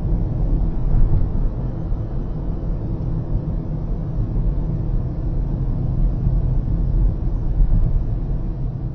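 Steady low rumble of a car driving at expressway speed, heard from inside the cabin: road and tyre noise with the engine underneath.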